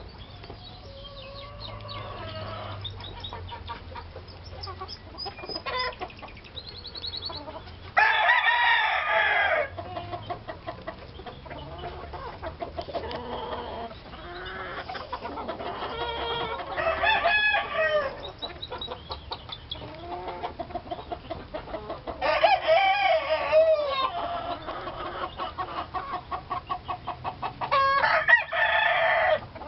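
Lacy Roundhead chickens clucking, with a rooster crowing four times, each crow drawn out for about a second and a half.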